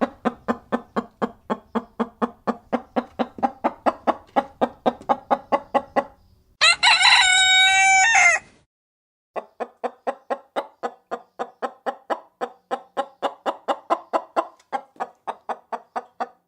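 Chicken clucking in a quick, even series, about four clucks a second. About six and a half seconds in it is broken by one loud, drawn-out crow lasting nearly two seconds. The clucking then starts again and stops a couple of seconds before the end.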